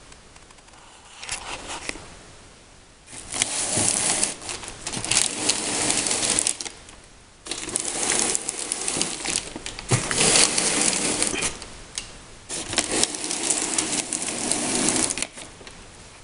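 Masking tape being pulled off the roll in long, crackling rips while a motorcycle helmet is masked for painting: one short, fainter pull about a second in, then three long, loud ones with short pauses between.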